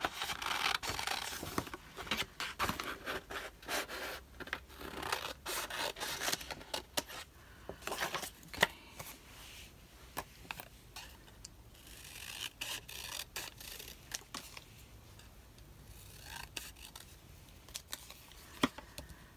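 Scissors snipping paper in short irregular cuts, with paper rustling and scraping against the desk.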